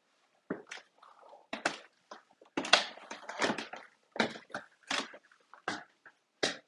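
Footsteps climbing a few stairs and walking along a hard laminate hallway floor: an irregular run of short knocks and scuffs.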